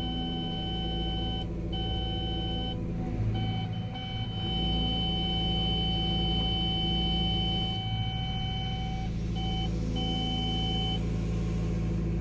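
Cat 320 excavator's E-fence warning tone beeping steadily in long stretches with a few short breaks, over the steady low hum of the diesel engine and hydraulics. The tone signals that the boom has reached the set E-ceiling height limit and is being held from going higher.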